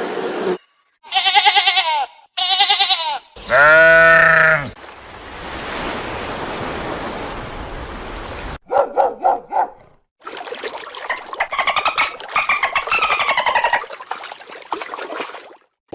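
A string of separate animal calls spliced together with abrupt cuts. First come two short quavering calls, then a longer, louder call. Later there is a patch of rapid pulses, and near the end a run of calls that slide in pitch.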